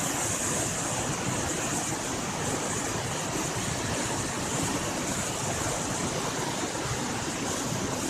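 Monsoon floodwater in a swollen, muddy stream rushing and churning over rocks, a steady, unbroken rush of water.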